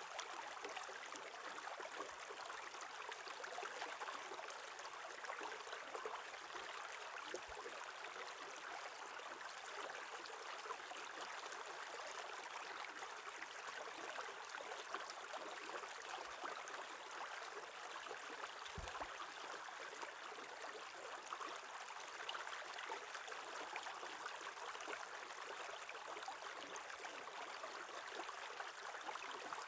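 A shallow stream running steadily over stones beneath a shelf of ice: a soft, even rush of flowing water.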